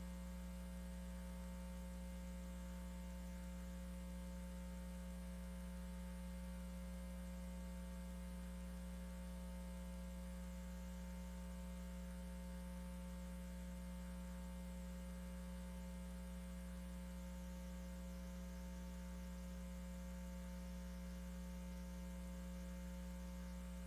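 Steady electrical mains hum, a low, unchanging buzz with nothing else heard.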